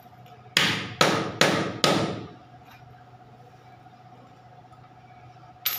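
Four quick knocks about half a second apart, then a single sharp knock near the end: a large ceramic floor tile being tapped down onto its mortar bed to seat and level it.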